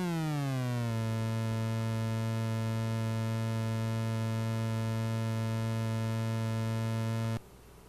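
Audio output of an XR2206 function generator chip set to a triangle-like wave. The tone sweeps down in pitch over the first second, then holds as a steady, low buzzing tone, and cuts off suddenly near the end.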